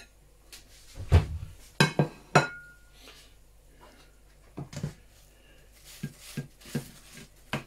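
Ceramic crockery knocking and clinking as a plate is fetched and set down on the counter: a dull knock about a second in, then three sharp clinks, the last one ringing briefly. After that come lighter clicks of a metal fork against a ceramic bowl of chips.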